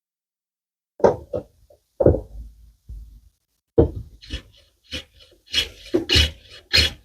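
A few wooden knocks as slats are handled and set down, then about four quick hand plane strokes scraping along a hardwood slat's edge.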